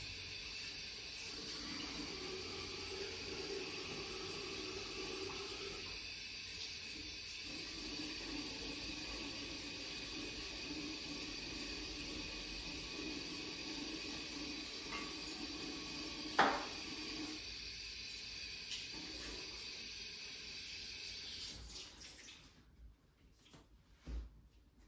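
Steady running water, like a tap running into a sink, that stops about 21 seconds in, with a single sharp click a few seconds before it stops.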